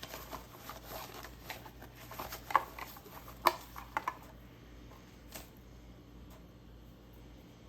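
Glittery slime being squished and stretched by hand: a run of small sticky crackles and clicks, with a few sharper pops in the middle. The sounds die down after about four seconds.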